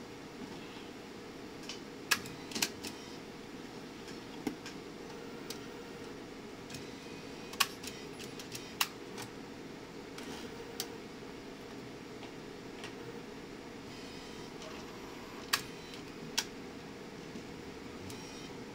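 Epson PP-100II disc publisher at work: its fan runs with a steady hum while sharp mechanical clicks and clacks come at irregular intervals as its disc transfer arm moves discs between the bins.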